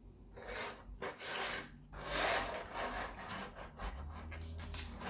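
Hands rustling and scraping through plastic LEGO pieces in three bursts, with scattered small clicks after them. A low steady hum comes in about four seconds in.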